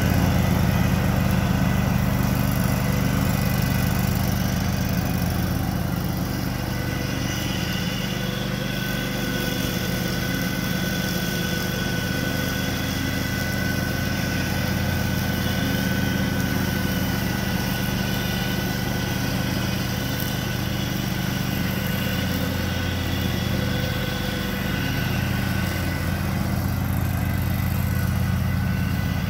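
John Deere F725 front-deck riding mower running steadily while being driven across the grass, its engine note carrying a thin steady whine above it.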